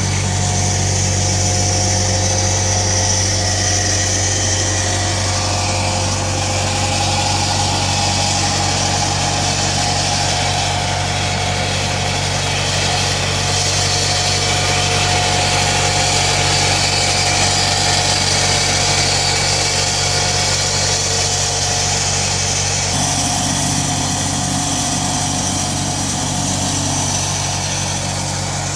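PowerBoss Armadillo 10X ride-on street sweeper running steadily as it drives and sweeps: an even engine hum with a steady high hiss over it.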